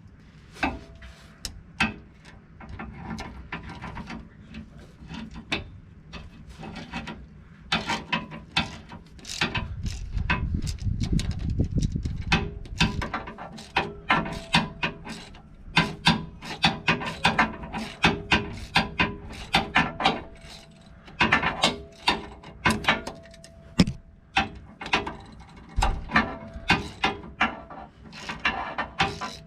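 Socket ratchet clicking in runs of short strokes, working the small 8 mm bolts on the Jeep's front driveshaft U-joint at the axle yoke, with metal tool rubbing and clatter between the strokes.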